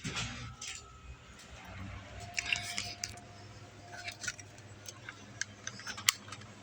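Scattered light clicks, taps and rustling of small items being handled, over a faint steady low hum.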